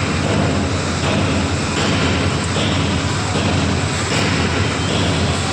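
Steady, loud running of industrial machinery, a continuous noise over a low hum.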